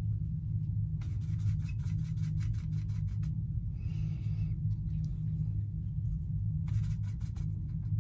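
Water brush scrubbing and tapping in Sakura Koi watercolor pans and the mixing palette: a quick run of light clicks for a couple of seconds, a short scratchy rub about four seconds in, and a few more clicks near the end. A steady low hum runs underneath and is the loudest sound.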